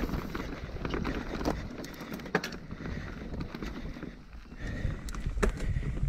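Mountain bike riding fast down a dirt forest singletrack: tyres rolling over the dirt and the bike rattling, with a few sharp clacks as it hits bumps.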